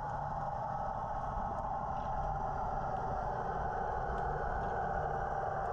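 Steady, muffled underwater noise picked up by a submerged camera, a constant hum over a low rumble, with a few faint ticks.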